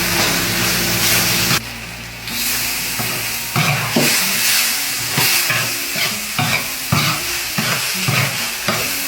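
Stir-fried mashi sizzling in a hot pan, with a steady frying hiss. From about three and a half seconds in, a spatula scrapes and knocks against the pan over and over, about twice a second, as the food is tossed.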